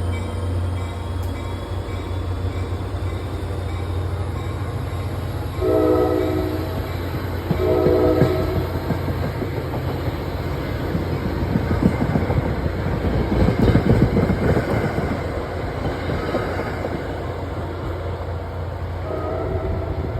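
EMD GP40FH-2 diesel locomotive departing with its engine drone underneath, sounding its multi-note horn in two short blasts about six and eight seconds in and again near the end. In between, wheel and rail noise from the moving train builds, loudest around twelve to fourteen seconds in.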